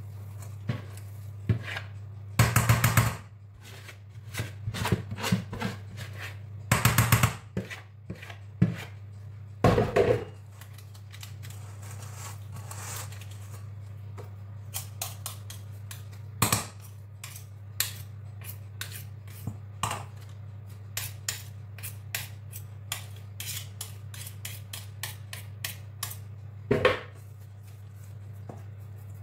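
A kitchen utensil scraping and clinking against a mixing bowl as cake batter is transferred into a lined baking tin: a few louder scrapes and knocks, then many small clicks, over a steady low hum.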